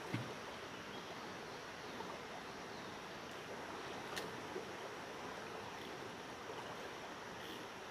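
River water flowing, a steady rushing, with a couple of faint clicks, one right at the start and one about four seconds in.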